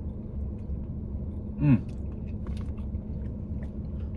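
A person biting and chewing a slice of pepperoni pizza, with faint wet mouth clicks, over the steady low rumble of a car idling. About a second and a half in, a short hum falls in pitch.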